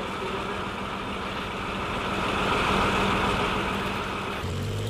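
Heavy vehicle engine running steadily with a dense rumble that swells a little about two to three seconds in. Near the end the sound shifts and a lower steady hum comes in.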